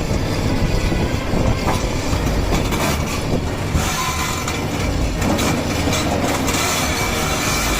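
A heavy vehicle or machine running: a steady, loud rumble mixed with rattling and scattered knocks.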